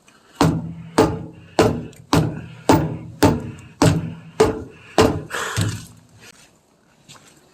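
A run of nine evenly spaced heavy thuds, a little under two a second, each with a short low ringing, stopping about five seconds in.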